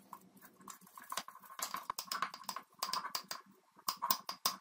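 Wooden spoon handle clicking and scraping against a small glass jar while stirring a thick flour-and-water paste, in quick irregular taps.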